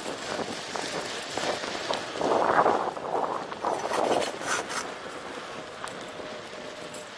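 BMX bike's tyres rolling on rough asphalt: a steady hiss with scattered light clicks, swelling louder twice, about two and four seconds in.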